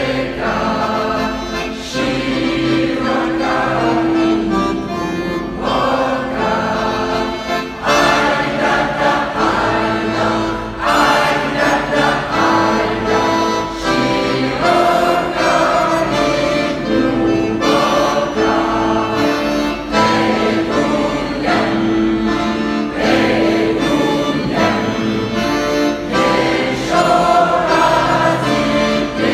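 Amateur mixed choir singing a Russian folk song, accompanied by a bayan (button accordion).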